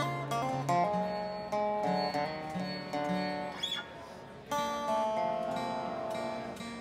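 Two guitars, a resonator guitar and an acoustic guitar, picking an instrumental passage with ringing notes. The playing dips about four seconds in, picks up again, then fades near the end.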